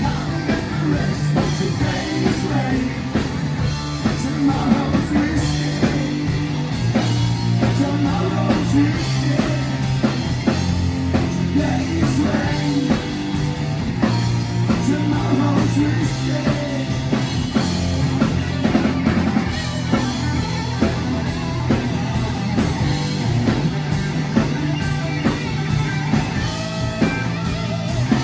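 A live rock band playing loudly: electric guitars, electric bass and a drum kit keeping a steady beat.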